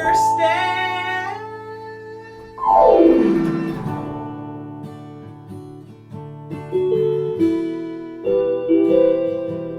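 Band playing an instrumental break led by guitar: a note slides down in pitch about two and a half seconds in, then new chords are struck twice near the end.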